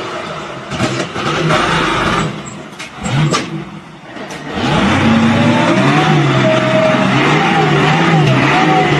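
A motor vehicle engine running. It is quieter and noisier for the first few seconds, then comes in loud and steady with a slightly wavering pitch about four and a half seconds in.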